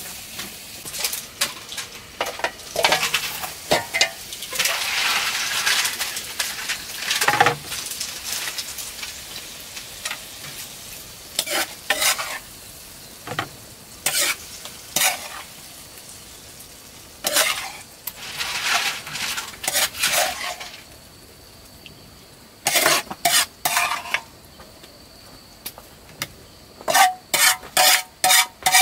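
Food sizzling in a frying pan while being stirred, a utensil scraping against the pan in repeated strokes. The sizzle dies down about two-thirds of the way through, and quick runs of knocks and clinks follow.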